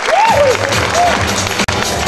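Audience applause and cheering, with dance music over the hall's sound system starting about a third of a second in.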